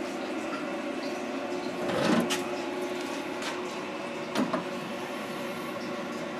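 Steady hum of shop room tone, with a few light clicks and knocks about two seconds in and again near the middle.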